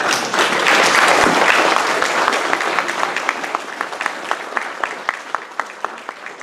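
Audience applauding, loudest about a second in, then thinning to a few evenly spaced claps that fade away.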